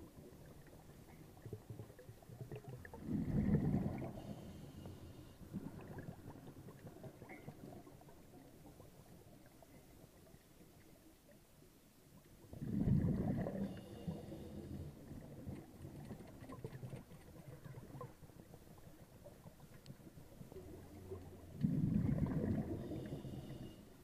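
Scuba diver's exhaled bubbles bubbling up underwater three times, about nine seconds apart, each followed by a short high whine. Faint underwater crackling runs between the breaths.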